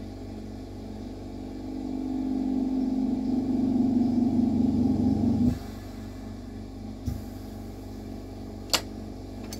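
A steady low machine hum that swells from about two seconds in and drops back suddenly about halfway through, followed by a soft knock and then a sharp click near the end.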